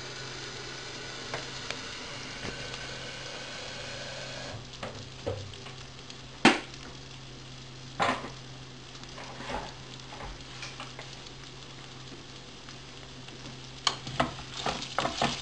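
Rice, pine nuts and onion toasting in oil in a frying pan, a soft steady sizzle that grows fainter after about four seconds, over a steady low hum: the rice is being toasted until the grains turn glassy, the first stage of Turkish iç pilav. Two sharp clacks come about six and eight seconds in, and near the end a spoon scrapes and taps the pan as the rice is stirred.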